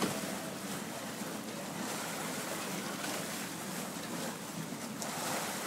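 Steady rushing noise of wind and water beside a ship's hull, with a low hum underneath.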